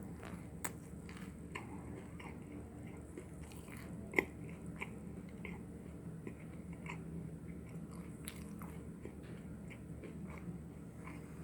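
A person biting and chewing a chewy chocolate chip granola bar: scattered soft crunches and mouth clicks, with one sharper click about four seconds in.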